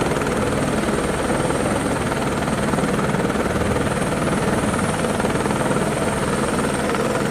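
Helicopter running steadily overhead, its rotor chop and turbine whine continuous and loud.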